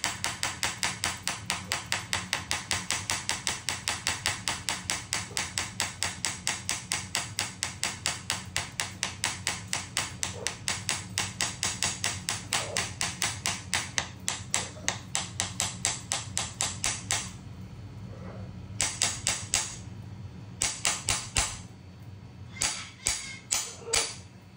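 A spoon tapped on a hard surface in a fast, even beat, about four or five taps a second, that stops about 17 seconds in; a few short bursts of quick taps follow.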